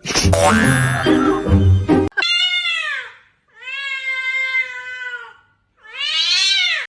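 Background music for about two seconds, then a cat meowing three times: two drawn-out meows that rise and fall in pitch around a longer, steadier one in the middle.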